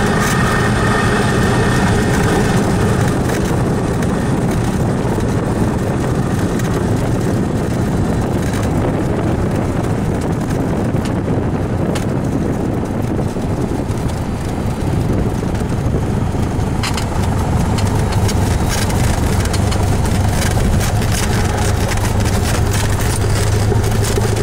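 Cessna 172's piston engine idling steadily, heard inside the cabin as the plane rolls out along the runway after touchdown. A run of light rattling comes in about two-thirds of the way through.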